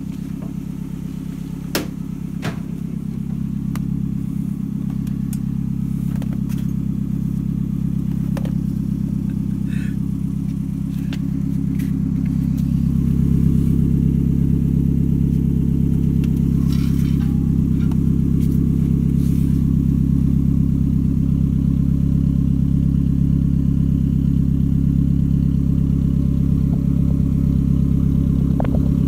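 Toyota Camry All-Trac's four-cylinder engine idling steadily through its newly replaced exhaust, heard from beneath the car. It grows louder partway through, with a few light clicks near the start.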